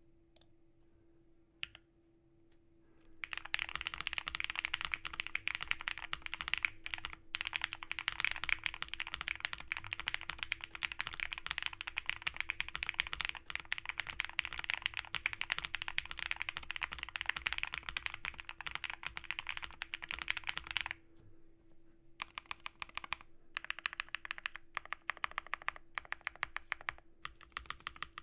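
Typing on a Glacier 80 mechanical keyboard fitted with lubed, filmed Black Cherry Pie linear switches, a POM plate, PE foam and a tape mod, under GMK keycaps. After a few near-quiet seconds, fast continuous keystrokes run for about eighteen seconds, then after a short pause come shorter bursts of keystrokes.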